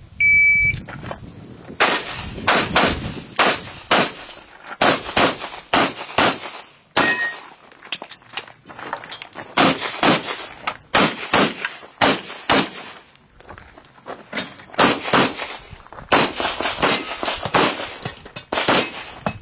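Electronic shot timer's start beep, then a handgun firing rapid shots, mostly in quick pairs, with short gaps between strings.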